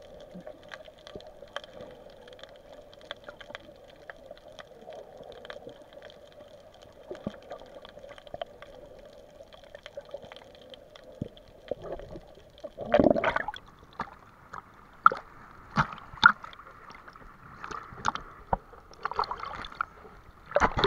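Water heard through a submerged camera: a dull, muffled steady hiss with many scattered sharp clicks and crackles. From a little past halfway, louder irregular sloshing and splashes as the camera nears and breaks the surface.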